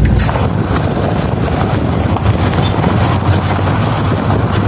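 Volkswagen Kombi on the move, a loud noise coming from a wheel that began when the brakes were applied; the owner wonders whether the brake caliper has come loose again.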